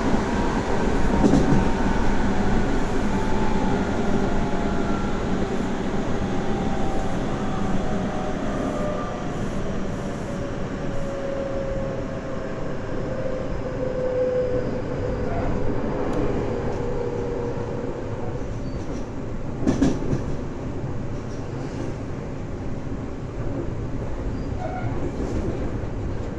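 Tobu 9050 series electric train heard from on board, running on the rails with a steady rumble. Its traction-motor whine falls in pitch over the first fifteen seconds as the train slows, and there is a single knock from the track about twenty seconds in.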